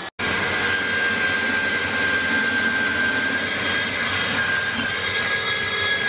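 Electric slicer-shredder motor running with a steady high whine while shredding carrots pushed down its feed chute.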